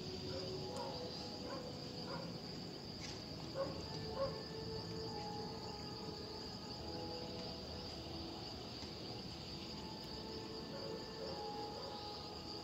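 Steady high-pitched chorus of night insects such as crickets, with short faint calls scattered lower down and two brief louder sounds about three and a half and four seconds in.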